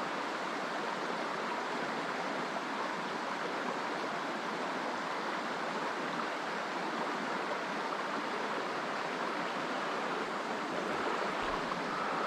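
Small creek running steadily over rocks: a constant, even rush of flowing water.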